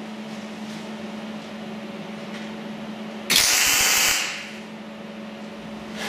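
Wire-feed (MIG) arc welder laying a short tack weld on a forged steel bracket: a sudden loud crackling hiss that starts about three seconds in and stops after about a second. A steady low hum runs underneath throughout.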